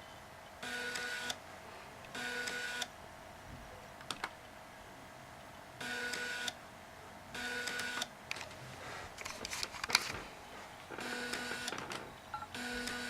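Slimline laptop floppy drive in a USB enclosure buzzing in short mechanical bursts of under a second, about six times, with a run of rapid clicks around ten seconds in. The drive is working by itself with no disk inserted, which the owner doesn't think the original drive did.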